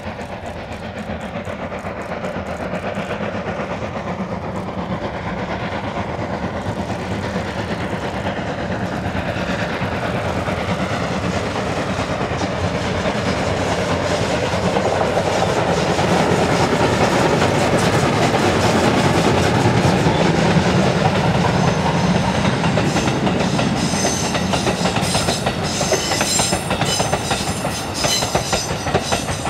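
D51 200 steam locomotive working a train, its exhaust beats building steadily louder as it draws near. Near the end, a rapid clatter of wheels over rail joints comes in.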